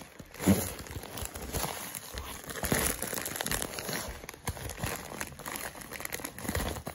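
Plastic poly mailer bag crinkling and rustling as it is handled and shifted on a wooden table, with one louder bump about half a second in.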